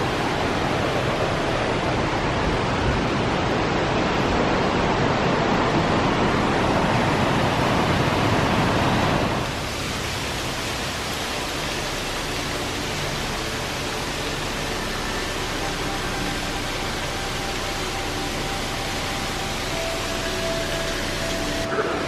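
Steady rush of a mountain creek and its cascading water, louder for the first nine seconds or so and then dropping to a lower, even rush. A faint steady hum runs beneath it in the second half.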